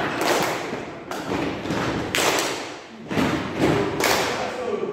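A group of people beating out a rhythm together with their hands, claps and thumps echoing in a large hall. The strikes fall about once a second and come faster near the end.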